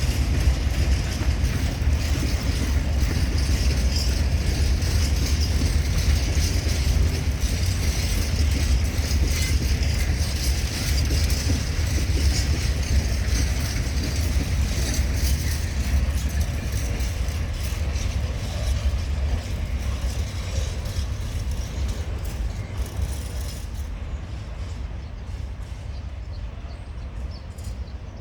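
HŽ Cargo series 2041 diesel locomotive running under load with a steady low engine drone while hauling freight wagons, with rolling noise and a few faint knocks from the train. The sound slowly fades over the last several seconds.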